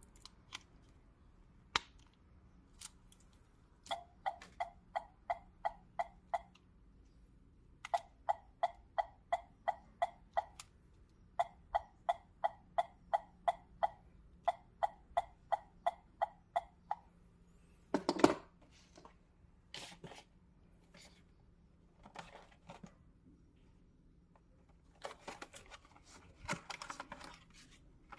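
Small electronic sound-effect toy playing a short pitched pulse repeated about three to four times a second, in three runs with short gaps. After that come handling clicks, one loud knock or rattle, and some rustling near the end.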